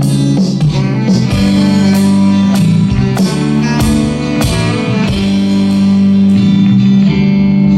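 Live band music without singing: an instrumental passage of a gospel song, with guitar over sustained chords and a steady beat of drum and cymbal hits about twice a second.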